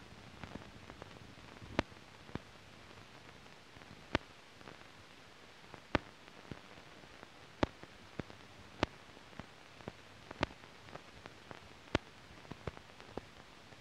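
Steady hiss broken by scattered sharp clicks and pops, one or two a second at irregular spacing: the surface noise of an old optical film soundtrack with no programme sound on it.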